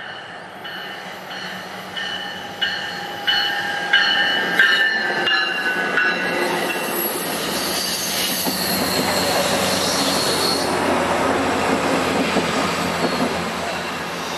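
MARC commuter train's bilevel coaches passing on a curve, their wheels squealing: a string of high squeals starting about every two-thirds of a second for the first six seconds. After that comes a louder steady rumble as the rest of the train and the diesel locomotive pushing at the rear go by.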